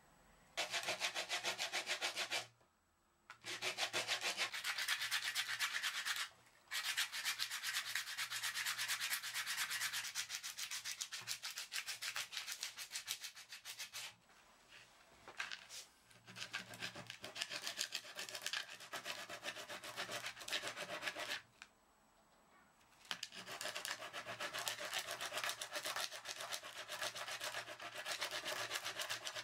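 Oak knife handle sanded by hand on sandpaper in rapid back-and-forth scratchy strokes, with several short pauses.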